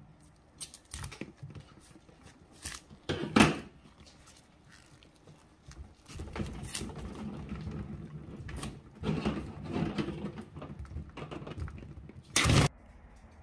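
Scissors snipping into a latex balloon packed with water beads, with hands pressing and rubbing the wet rubber as the beads squish and spill out. A few sharp snips come in the first four seconds, the loudest about three and a half seconds in, and a longer cut near the end.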